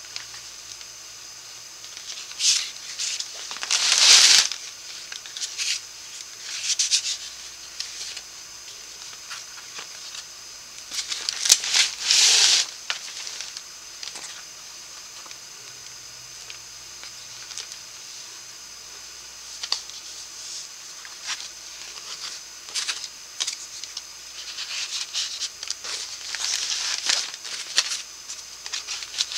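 Stiff cardstock pages and flaps of a handmade paper scrapbook folio being turned and folded by hand: scattered rustles and brushing of paper, loudest about four and about twelve seconds in and busier near the end, over a faint steady hiss.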